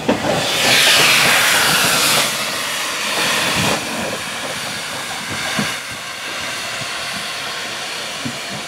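Steam hissing from a small industrial 0-4-0 saddle-tank steam locomotive as it runs slowly along the track: loudest for the first couple of seconds, then a steady, lower hiss with faint knocks underneath.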